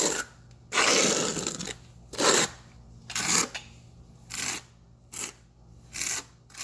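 Notched steel trowel scraping and spreading wet cement tile mortar in a series of strokes. The first stroke lasts about a second, and shorter strokes follow roughly once a second.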